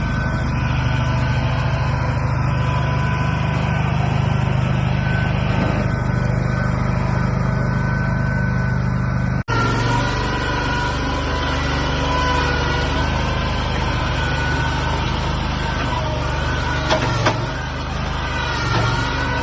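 Heavy engine of a truck or machine running steadily, with a momentary break about halfway through.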